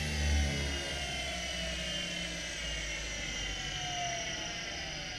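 Kunming KXM10 cutter grinder's three-phase motor and wheel spindle winding down after being switched off at its drive, a whine falling steadily in pitch, with the low hum dying away in the first half-second.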